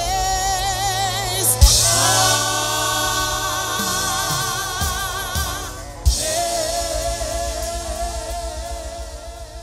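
Church worship team singing a gospel hymn in harmony with live band backing, holding long notes with vibrato over a steady bass. Two loud hits land about one and a half and six seconds in, and the music fades out near the end.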